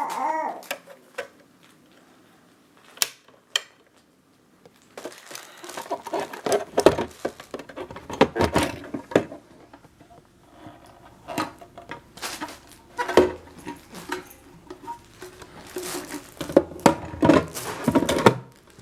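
Irregular clicks, knocks and light clattering of hard objects being handled, in bursts, over a faint steady hum.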